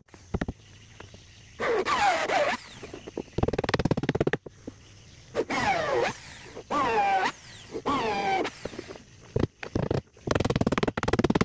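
Cordless drill working into a wooden boat's planking and frames in about six short runs. The motor's pitch falls during each run as it loads up in the wood.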